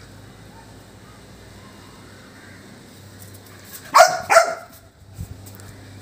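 Labrador puppy barking twice in quick succession, about four seconds in.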